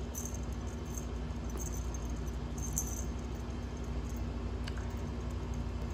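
A steady low hum with a few faint, brief jingling rattles and a single click.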